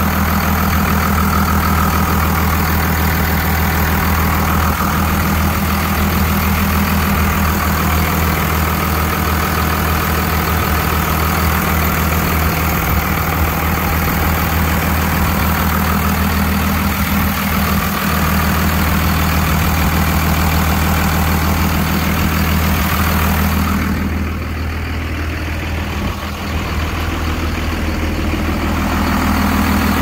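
Heavy vehicle engine idling steadily with a constant low hum. For a few seconds near the end it turns quieter and duller, then comes back up.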